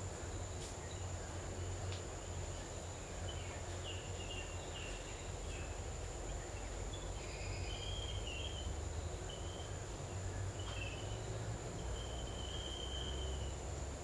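Outdoor ambience: a steady high insect whine runs throughout, with small birds giving short chirps and whistled calls from a few seconds in, the longest call near the end, over a low rumble.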